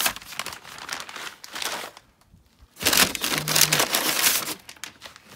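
Brown kraft packing paper being crumpled and rustled by hand inside a cardboard box, in two spells of crinkling with a short pause about two seconds in.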